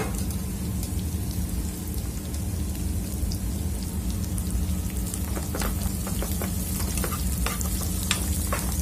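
Diced onion and garlic sizzling as they fry in a pan, over a steady low hum. From a little past the middle, a metal spoon clicks and scrapes against the pan as the onion is stirred in.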